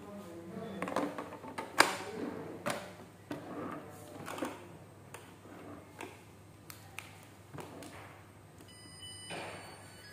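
Zojirushi rice cooker being handled: its aluminium inner lid fitted back and the hinged outer lid shut, a string of clicks, knocks and plastic-and-metal clatter, the sharpest click about two seconds in. Fainter knocks follow, and faint high steady tones come in near the end.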